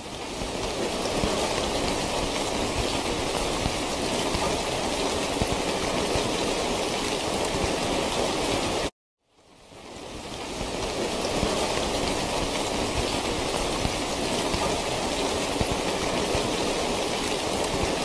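Steady rain, an even hiss of falling water. It cuts off abruptly about nine seconds in and fades back up over about a second, as the rain recording starts over.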